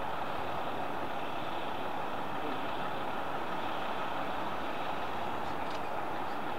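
Boeing 747-400's four jet engines running steadily at low power, an even roar with no rise or fall.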